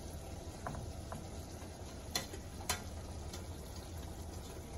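A few light clicks and taps of a metal utensil against a ceramic plate as pieces of chicken are set down, the two sharpest about two seconds in and half a second apart, over a steady low background hum.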